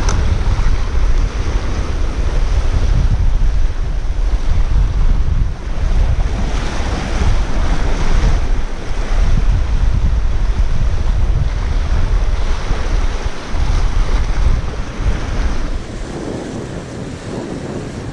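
Strong wind buffeting the microphone over surf washing on the shore: a heavy, steady rumble with swelling surges, easing a little near the end.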